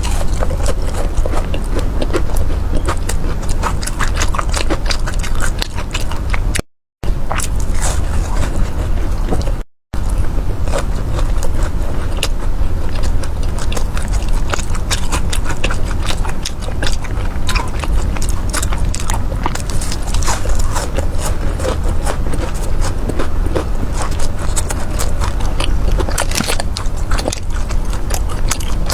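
Close-up biting and chewing of crunchy, syrup-glazed Chinese fried pastries (mi san dao and tang erduo), a dense run of crackling crunches. The sound cuts out twice briefly.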